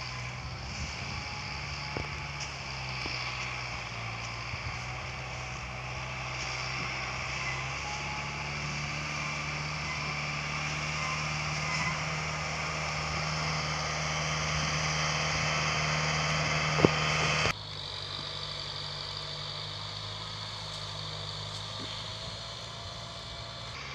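Kubota MU5501 tractor's four-cylinder diesel engine running steadily while pulling a heavily loaded sugarcane trolley. Its note steps up in pitch about a third of the way in and grows gradually louder, then drops suddenly in level about three-quarters through and carries on evenly.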